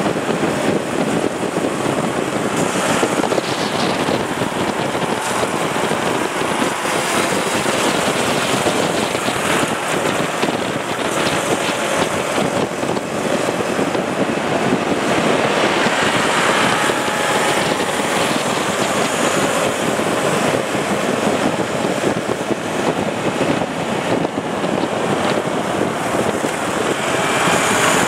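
Several motorcycle engines running at riding speed, with wind buffeting the microphone of the camera on a moving motorcycle; a steady, loud noise throughout.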